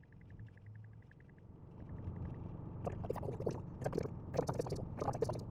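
Inside a car's cabin: a fast, faint ticking for the first second and a half, then about three seconds in a louder rough, splashy noise of tyres on wet road.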